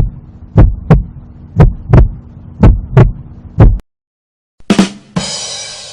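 Heartbeat sound effect: pairs of low thumps, about one pair a second, over a steady low hum, lasting nearly four seconds. After a short pause, two quick hits and then a loud hissing sound effect begin about five seconds in.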